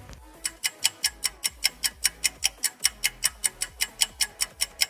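Fast, even clock-like ticking, about five ticks a second, starting about half a second in, with faint low tones beneath.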